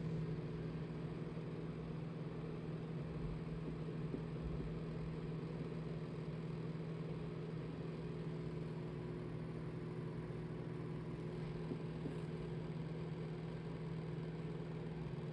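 A small motor running steadily with a constant low hum and overtones.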